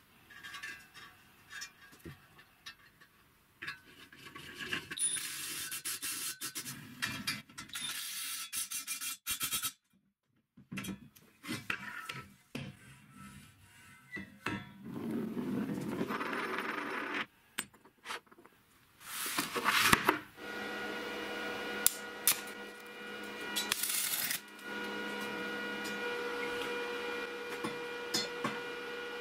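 Metal scraping, rubbing and clinking as a welded square-tube steel frame is deburred and handled, in short clips separated by abrupt cuts. In the last third a steady hum with several held tones takes over.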